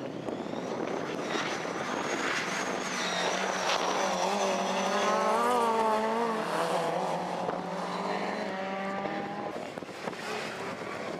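Stage rally car engines worked hard through a tight cone chicane, their note rising and falling as the drivers brake and accelerate, loudest about halfway through. A thin high-pitched whine sits over the engine for the first few seconds.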